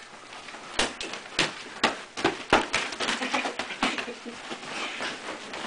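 Punches and bodies thudding and slapping in a play-fight scuffle, a quick irregular run of about a dozen hits.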